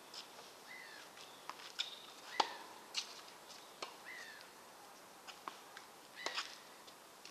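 Tennis ball being struck by rackets and bouncing on an outdoor court, a series of sharp pops, the loudest about two and a half seconds in. A bird repeats a short call that falls in pitch every second or two.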